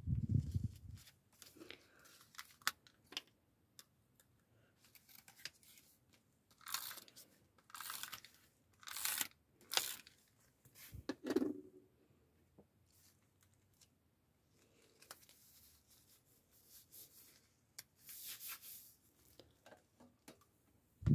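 Paper being handled and pressed flat on a journal page: a handful of short rustling, scraping strokes, with a dull bump at the start and another about eleven seconds in.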